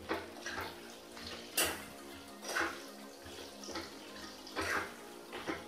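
Metal spatula scraping and stirring chopped amla with spices in a metal kadhai, in short strokes about once a second.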